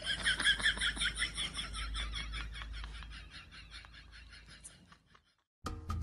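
A rapid, even series of high chirping calls, about five a second, that slowly fade away and stop about five seconds in.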